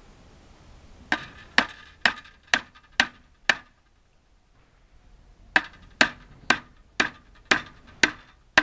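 Hammer driving a steel nail through a pine plank into a wooden chair leg: two runs of sharp blows, about two a second, with a pause of about two seconds between them.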